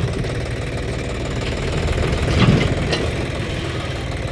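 Diesel engine of a road milling machine running steadily while the machine is driven up a loading ramp. It swells briefly about halfway through, with a couple of sharp knocks.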